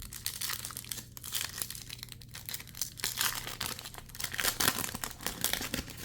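Plastic wrapper of a Pokémon mini booster pack being torn open and crinkled in the hands, a continuous run of crackles with sharper rips.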